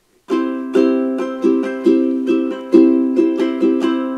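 Ukulele strummed on a C major chord, starting about a third of a second in and continuing in a steady strumming rhythm of a few strums a second, some strokes accented.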